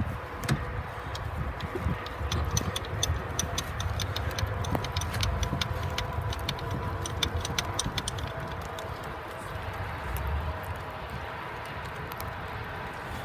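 Ratchet wrench clicking in quick runs as the bolt holding the AC line fitting at the compressor is loosened, over a low steady hum. The clicking thins out about two-thirds of the way through.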